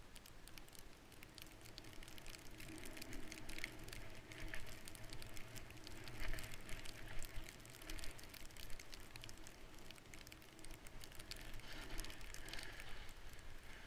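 Skis running through deep powder snow: a steady hiss of snow with many small crackles, uneven in loudness as the skier turns.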